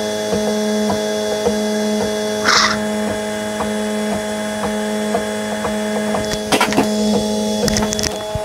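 Prusa i3 MK2S 3D printer's stepper motors whining steadily in several held tones while printing the first layer, with faint regular ticks. A short hiss comes about two and a half seconds in, and a few sharp clicks near the end.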